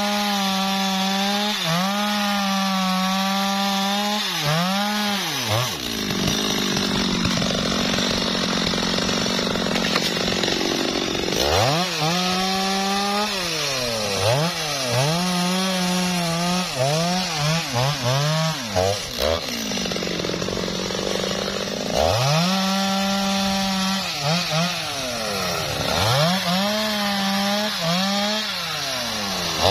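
Stihl chainsaw cutting through a teak log, its engine held high and steady under load. It eases off twice between cuts and revs back up each time.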